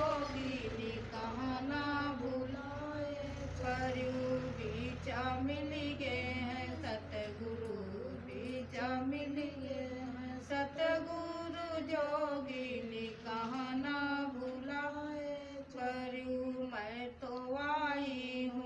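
Women chanting a devotional song (satsang bhajan) in long, slowly rising and falling sung phrases, with a low steady hum underneath from a few seconds in.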